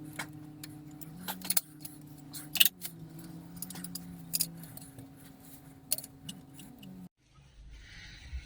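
Scattered metallic clinks and clicks of hand tools and engine parts being handled, over quiet background music. The sound cuts off abruptly about seven seconds in.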